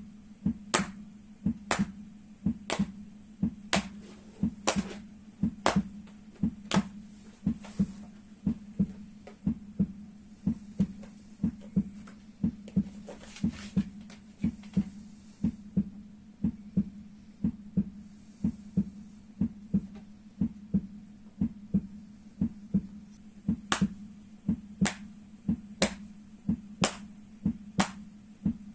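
Rhythmic slaps struck on the soles of the feet in the rhythm of a heartbeat, paired beats about once a second, softer through the middle and sharper again near the end. A steady low hum runs underneath.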